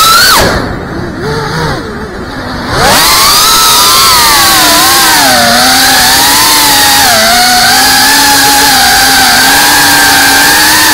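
FPV quadcopter's brushless motors whining, the pitch wavering up and down with the throttle. About half a second in the whine drops away and goes quieter for about two seconds, then comes back in with a rising pitch and holds steady.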